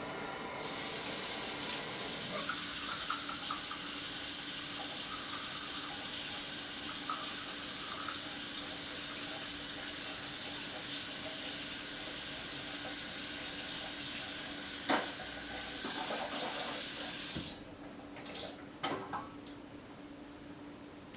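Water running steadily from a tap, starting about half a second in and shut off suddenly near the end, with a sharp knock partway through and a couple of clicks after the water stops.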